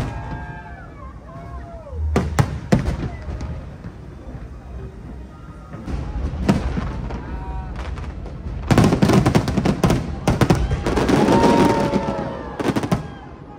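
Aerial fireworks exploding overhead: a few separate bangs, then a dense rapid barrage of cracks and booms from about nine seconds in that stops shortly before the end.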